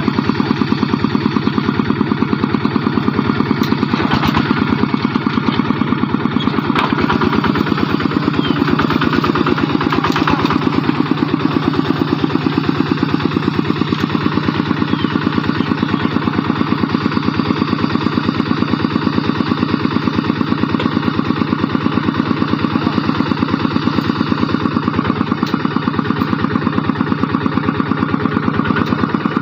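Two-wheel walking tractor's single-cylinder diesel engine running steadily with an even, rapid chugging beat.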